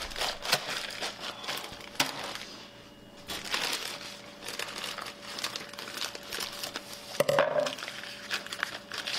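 Plastic bag of dried beans crinkling as it is handled and opened, the beans shifting inside, with a couple of sharp clicks about 2 seconds and about 7 seconds in.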